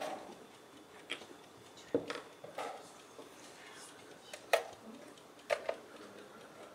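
Wooden chess pieces clacking down on a board and the chess clock being pressed during play: a string of sharp clicks and knocks at irregular intervals, the loudest about four and a half seconds in.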